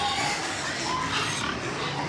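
Pigs in their pens, with short pitched grunts or squeals over a busy background of farmyard noise.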